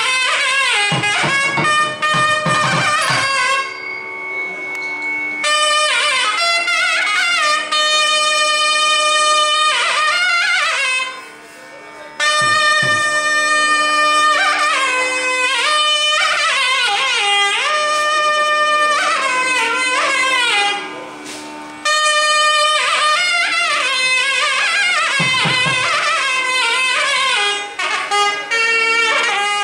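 Nadaswaram playing a Carnatic melody full of sliding, ornamented notes over a steady drone, dropping off briefly about 11 seconds in and again around 21 seconds.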